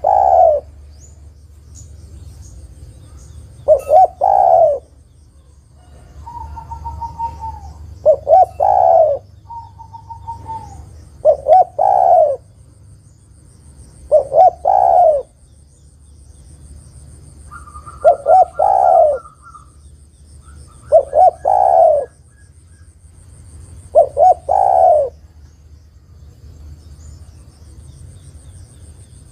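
Spotted dove cooing in short phrases of a few quick notes ending in a longer coo, repeated about every three to four seconds, eight times. Presented as a female calling to draw a male into song. Thin whistled notes sound between some of the phrases.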